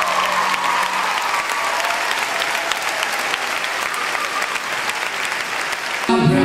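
Audience clapping. A held chord from the band fades out in the first second, and about six seconds in the sound cuts abruptly to a louder, low pitched held tone.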